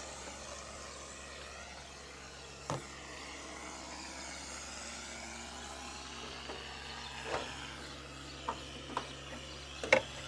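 A few light knocks and clicks of a gutter downpipe being offered up and test-fitted to the gutter outlet, the sharpest near the end, over a faint steady outdoor background.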